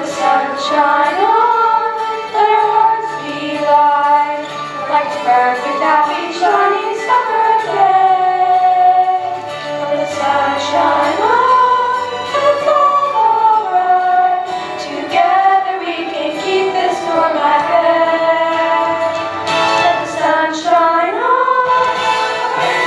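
A song sung by young voices over instrumental backing music, the melody moving between held notes above a steady bass line.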